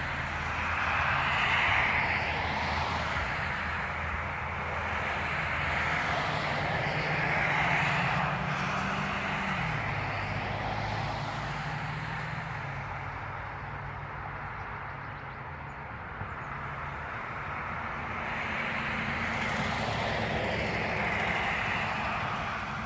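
Road traffic going by, its noise swelling and fading as vehicles pass, under a low engine hum that drops in pitch about ten seconds in.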